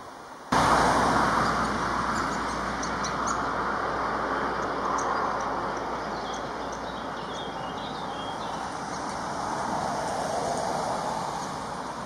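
Steady hum of road traffic that starts suddenly about half a second in, with faint, high bird chirps and ticks over it.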